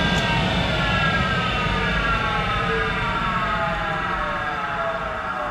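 The whine of the Monarch 10EE lathe's electric drive falling steadily in pitch as the machine winds down after being stopped, over a low hum.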